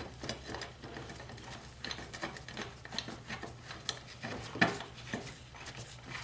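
Steel nut and metal parts being fitted together by gloved hands: light irregular metal clicks and scraping, with one louder clink about four and a half seconds in.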